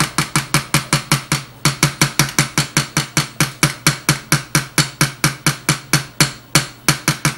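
Cheap stick blender's head being tapped over and over at an even pace, about six sharp taps a second, knocking off the thick soap batter that clings to it.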